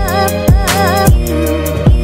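Electronic background music with a steady, heavy drum beat and a wavering melody line.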